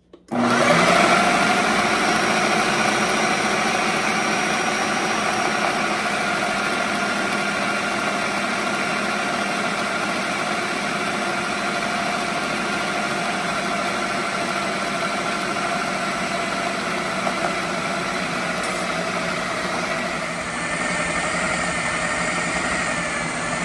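Food processor motor switched on at low speed and running steadily, its dough blade mixing cracker dough as cold water is added through the lid's feed opening.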